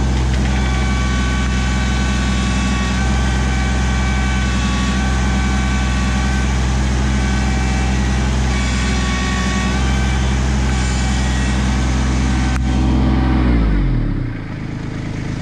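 Kubota LX2610 compact tractor's three-cylinder diesel engine running steadily with a high whine over it. Near the end it is shut off and the engine note winds down to a stop.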